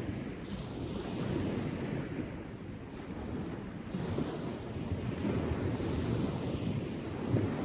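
Wind buffeting the microphone: an unsteady low rumble that swells and eases.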